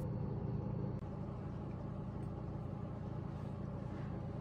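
A steady low hum, with a brief dropout about a second in.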